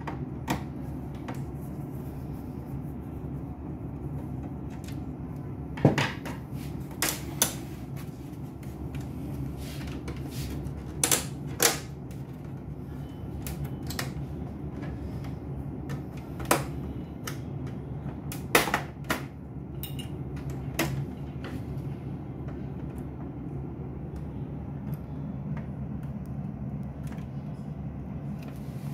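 Scattered sharp clicks and knocks of a laser printer's plastic panels and parts being handled and fitted, a dozen or so at irregular intervals, over a steady low hum.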